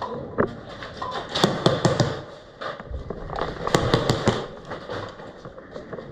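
Airsoft guns firing: two volleys of rapid sharp shots, one starting about a second in and the other about three and a half seconds in.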